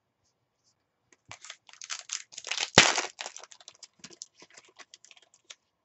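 Foil wrapper of a trading-card pack being torn open and crinkled by hand: a run of crackling rustles, with the sharpest tear a little under three seconds in.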